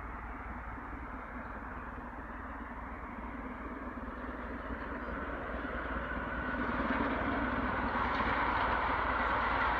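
Steam locomotive hauling a passenger train, working hard under large exhaust plumes. The sound of engine and train grows louder about halfway through as it approaches.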